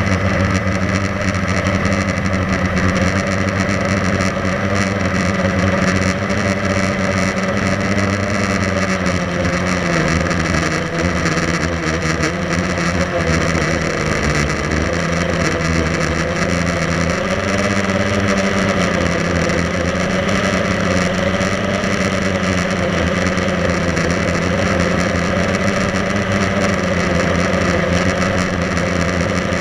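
Blade 350 QX3 quadcopter's brushless motors and propellers whining steadily in flight, heard from the camera mounted on the drone. The pitch dips and rises a few times as the throttle changes.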